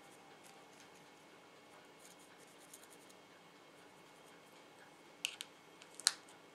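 Faint scratchy brushing of a small makeup brush picking up powder blush from a compact and stroking it onto tissue paper, then two short sharp clicks about five and six seconds in as the plastic spoon and brush are set down.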